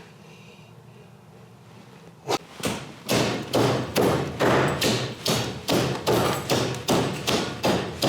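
Garbage disposal switched on with an iPhone in it, the phone banging around inside the grinding chamber in a loud run of knocks about two a second over the motor's hum, starting about three seconds in.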